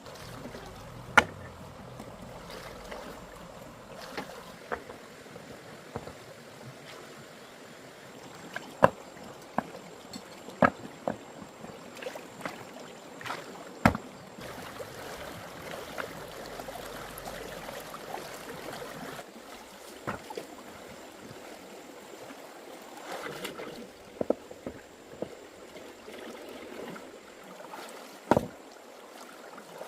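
Water sloshing and lapping, with sharp knocks or splashes every few seconds.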